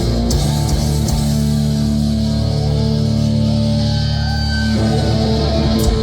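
Heavy metal band playing live: distorted electric guitar and bass holding sustained chords that change about three-quarters of the way through. A few cymbal hits come near the start and near the end.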